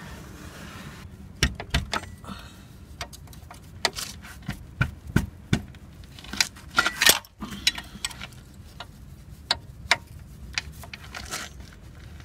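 A 19 mm wrench clinking against a nut rusted fast onto the anchor pin of a UAZ drum brake as the nut is worked loose: irregular sharp metallic clicks and knocks, with a dense cluster of them about seven seconds in.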